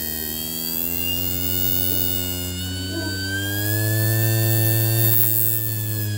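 Hard drive's brushless spindle motor running with the platter spinning: a steady whining hum with many overtones. Its pitch wavers slightly, dipping, then rising and dipping again, and a stronger low hum joins about halfway through.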